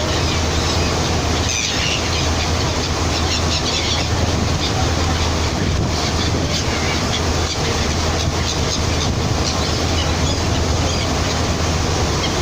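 Seagulls crying in short, scattered calls over a loud, steady low rumble.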